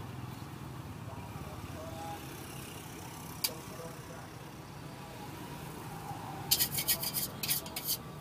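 Metal cooking utensils clinking and knocking against a metal pot and wok in a quick run near the end, with a single sharp click about halfway through. A steady low rumble runs underneath.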